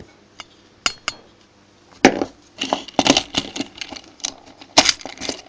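Hand tools clicking, knocking and scraping against the small plastic and metal parts of a residual current device (RCD) as it is pried apart. A few single clicks come first, then a busy run of clicks and scrapes with sharp knocks at about two seconds and again near the end, as a part comes loose.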